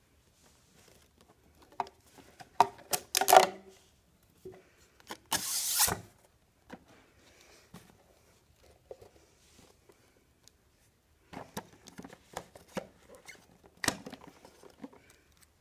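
Hands unpacking a GoPro camera box: plastic and cardboard packaging rubbing, clicking and sliding apart, with one longer scrape about five seconds in. Later come scattered plastic clicks and taps as the camera in its housing is worked off its mount, the sharpest near the end.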